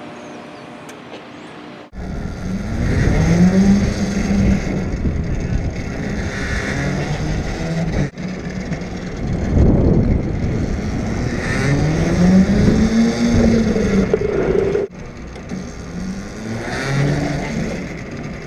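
Go-kart motor heard from on board, speeding up and slowing down in long rising and falling sweeps; the sound breaks off abruptly a few times.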